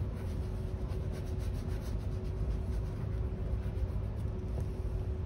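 Hand rubbing and wiping over a leather dress shoe in soft repeated strokes, over a steady low background hum.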